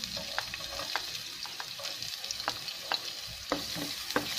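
Chopped red onion sizzling in hot oil in a nonstick wok while a spatula stirs it, with scattered sharp ticks and pops over a steady hiss.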